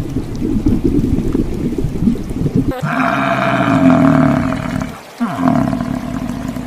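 A low rumbling noise, then about three seconds in a large animal's long, loud pitched call. The call breaks off and glides down in pitch partway through, then carries on more quietly.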